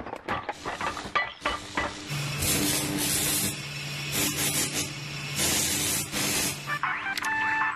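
Welding sound effect: a steady electric hum with two long bursts of hissing crackle, after a run of clattering knocks. Music comes in near the end.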